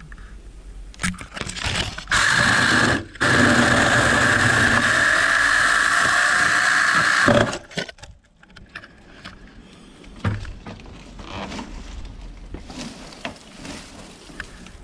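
Mini electric chainsaw running with a steady high whine in two runs: it starts about two seconds in, cuts out for a moment, then runs again for about four seconds before stopping. Lighter crackling and rustling of vines and twigs follows.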